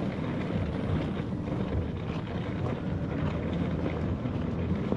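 Steady street noise with car traffic passing on the road and wind on the microphone.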